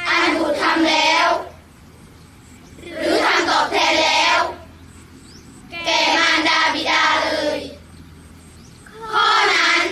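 A group of children chanting a Buddhist sutta in unison, in a sing-song recitation. They chant in phrases of a second and a half to two seconds with a short pause for breath between each, four phrases in all.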